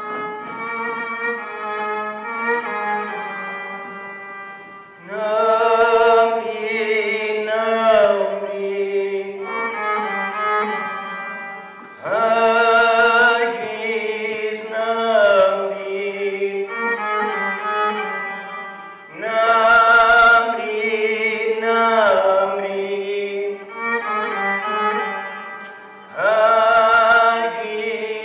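A man singing with a wide vibrato while accompanying himself on the violin. Long held violin notes run underneath, and four louder sung phrases come in about every seven seconds, each ending in a falling slide.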